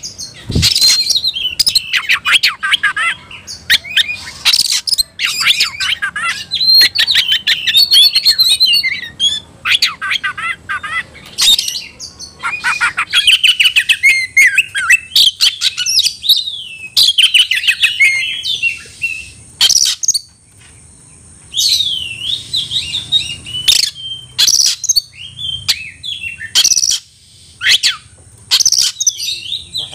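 Oriental magpie-robin (kacer) singing hard: a fast, varied stream of high whistles, trills and harsh chattering notes in phrases, with a short break about twenty seconds in. This is the heated, challenging song of a male fired up and calling out a rival.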